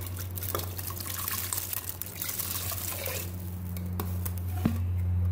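Water poured into a pressure cooker of fried masala, splashing off a steel ladle for the first couple of seconds. The ladle then stirs the gravy and knocks sharply against the pot twice near the end, over a steady low hum.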